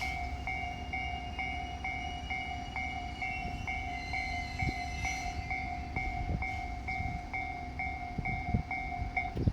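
Japanese railway level crossing alarm ringing, a two-tone electronic ding repeating about twice a second, that stops near the end, over the low rumble of a passing diesel train, with a few wheel thumps toward the end.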